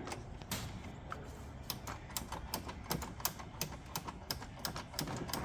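Socket ratchet clicking as it is worked back and forth in short strokes on a car battery hold-down nut, with only about one click of swing per stroke. A series of sharp ticks, sparse at first, then coming about three a second.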